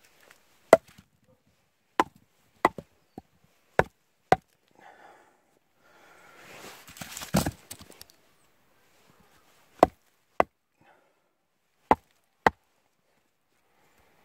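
Sharp wood-on-wood knocks, a piece of log used as a mallet to drive sharpened wooden stakes in, about a dozen blows in two runs, often in pairs about half a second apart. Between the runs, about six to eight seconds in, a couple of seconds of rustling and crunching as logs are shifted in the snow.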